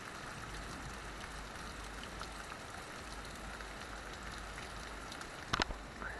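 Steady heavy rain from a thunderstorm falling and splashing on the ground outside. A couple of sharp knocks come about five and a half seconds in.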